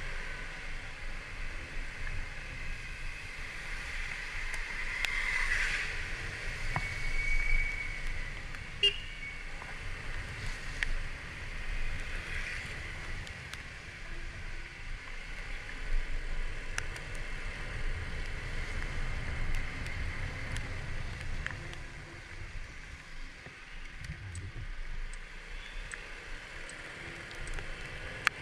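Kymco Like 125 scooter riding on a rainy city road: steady rumble of the running scooter and traffic with hiss from the wet road. A short steady high tone sounds about seven seconds in, and a few sharp clicks come and go.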